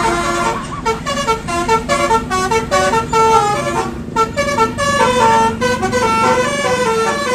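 Telolet multi-tone bus horn of the Basuri type playing a fast tune of short pitched notes that step up and down, with a few brief breaks.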